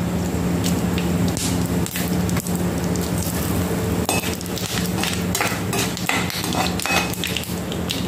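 Whole spices and bay leaves sizzling in hot oil in a kadai, crackling with many scattered sharp pops over a steady low hum.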